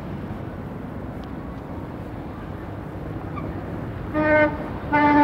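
Steady city street traffic noise, then a vehicle horn honks twice near the end in two short blasts less than a second apart; the horns are the loudest sound.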